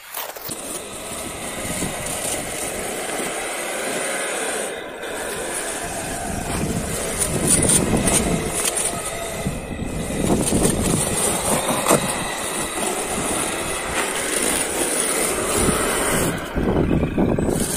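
A 1/8-scale RC Ford truck's motor and gears running with a steady high whine while its plow blade pushes and scrapes through deep snow, the sound getting louder about halfway through.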